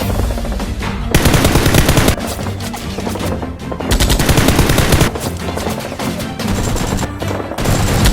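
Rapid automatic gunfire in bursts: one about a second in lasting about a second, another near the middle lasting a little over a second, and a third starting near the end, over background music.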